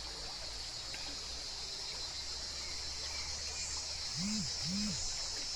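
Cicadas droning in a steady, high, even buzz. About four seconds in, two short low notes rise and fall, one right after the other.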